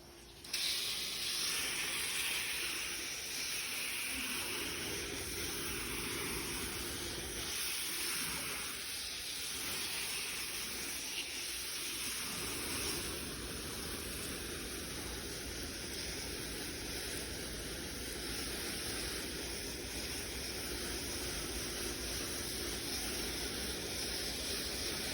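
Water spray hissing steadily from a soft-wash sprayer, starting about half a second in.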